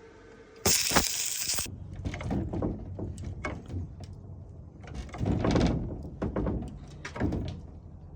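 A door with a newly fitted sliding bolt lock being worked: a loud, harsh scrape about a second in, followed by a series of knocks and rattles.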